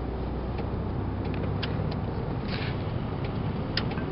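Car cabin noise while driving: a steady low rumble of engine and road, with a few faint clicks.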